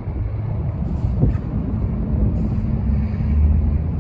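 Steady low rumble of passing vehicles, with brief hissing now and then.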